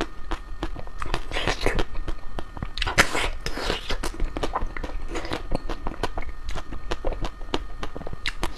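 Close chewing and biting of crispy ice cream: a quick run of sharp crunches and clicks, several a second, with a few longer crackling crunches in between.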